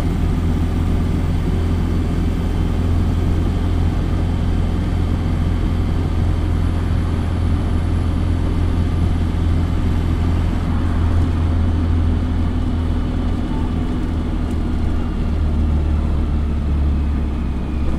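Dennis Dart single-deck bus heard from inside the saloon while cruising at speed: a steady, loud low engine drone over tyre and road noise, with a faint falling whine near the end.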